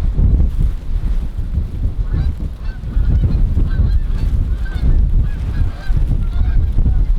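Strong wind buffeting the microphone in a loud, uneven low rumble, with many short, faint goose honks scattered through it from about two seconds in.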